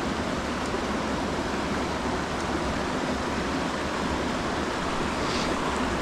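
Steady rushing of flowing mountain stream water.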